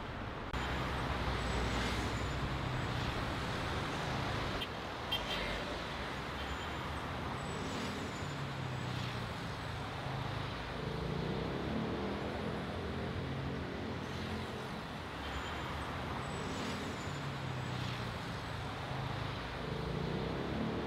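City road traffic: a steady rumble of passing cars and buses whose engine hum swells and fades as they go by, with a brief click about five seconds in.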